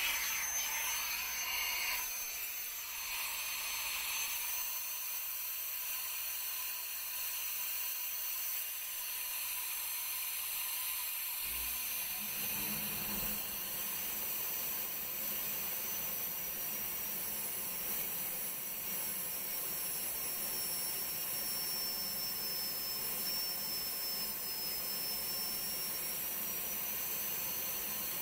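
Ultra-high-speed piercing burr spinning at about 330,000 rpm, a dental-style air-turbine handpiece, giving a steady high whine over a rush of air. Its pitch sags slightly for several seconds in the second half as it cuts through the thin maple wall.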